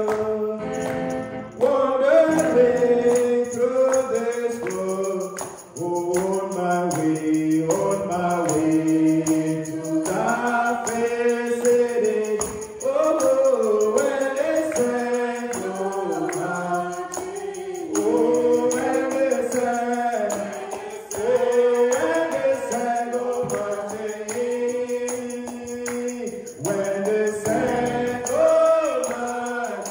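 Church congregation singing a gospel song together, with a tambourine keeping the beat.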